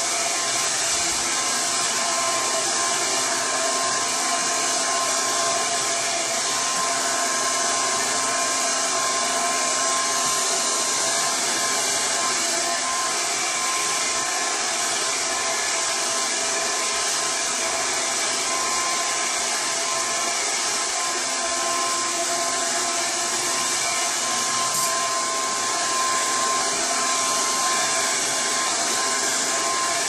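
Red by Kiss double-layer pik blow dryer running steadily on its cold shot: a constant rush of air with a high, even motor whine.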